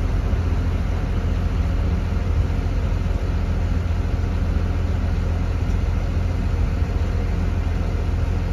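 Parking lot tram's tractor unit idling, a steady low running sound with no change in pitch.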